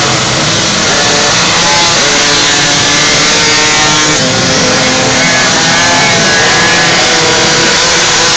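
Several minimoto pocket-bike two-stroke engines revving at once, loud and high-pitched. Their pitches rise and fall across one another as the throttles are blipped.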